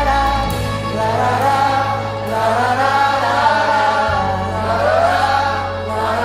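Contemporary Christian worship music: several voices singing a drawn-out melody without clear words over held low chords, the bass note changing about half a second in and again about four seconds in.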